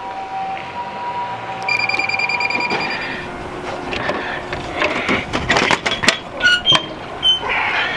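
Vending machine electronic beeping: two steady tones, then a fast run of high beeps from about two seconds in. It is followed by a series of clicks and knocks with short blips from about four seconds in.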